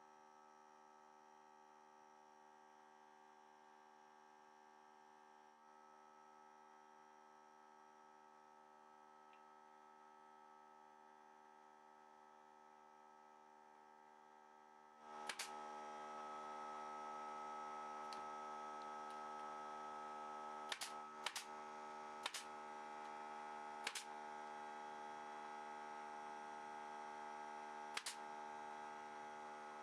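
A steady electrical hum made of many evenly spaced tones, faint at first and getting louder about halfway through, with a few sharp clicks in the second half.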